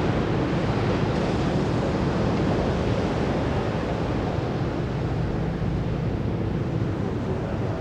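Steady rushing noise of wind and surf, with a low steady drone underneath.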